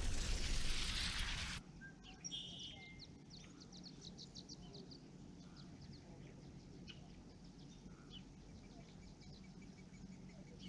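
Loud rushing noise cuts off abruptly about a second and a half in. Small birds then chirp and sing in the background, with a rapid trill in the first few seconds after the cut and scattered chirps later.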